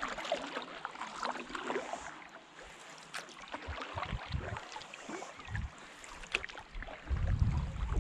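Water splashing and dripping around a canoe in irregular small ticks, with a few low knocks about halfway through and a low rumble starting near the end.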